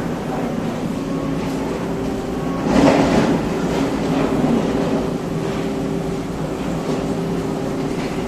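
Tobu Skytree Line electric train running through the station: a steady hum with a louder rush of noise about three seconds in.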